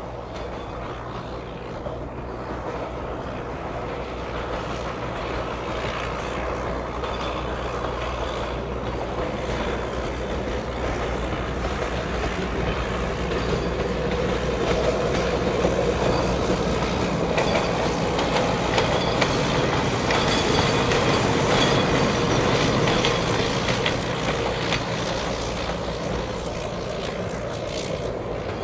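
Small rail bus, a bus body running on steel rails with a flatcar coupled on, running along the track, its motor humming steadily under the rumble and clicking of the wheels on the rails. The sound grows louder as it comes closer, peaks about two-thirds of the way through, then eases off.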